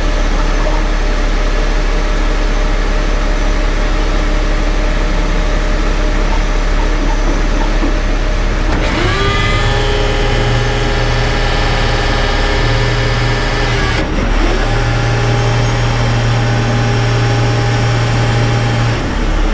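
Rotator wrecker's diesel engine running steadily, then speeding up about nine seconds in and holding a higher steady pitch. The pitch dips briefly around fourteen seconds, rises again and falls off near the end, as the engine is raised to work the boom's hydraulics.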